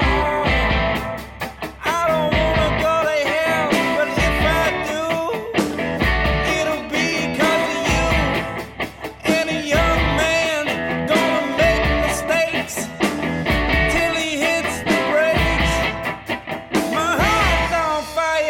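Rock song with a sung vocal line, guitar and a steady drum beat.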